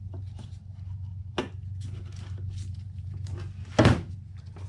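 Plastic clicks, taps and rustling as gloved hands handle a car headlight housing and fit bulbs into it, with one loud knock about four seconds in, over a steady low hum.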